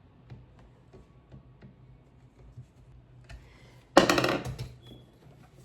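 Handling of weed eater parts during assembly: scattered small clicks and taps, then a louder burst of rustling clatter about four seconds in.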